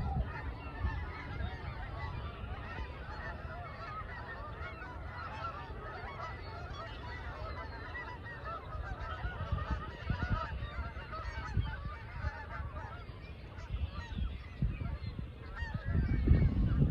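A flock of geese calling continuously, many overlapping short honks and chatter. A low rumble swells near the end.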